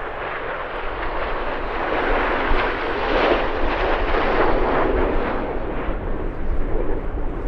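Jet noise from Red Arrows BAE Hawk T1 jets making a low pass as two formations cross, swelling to a peak about three seconds in and then fading.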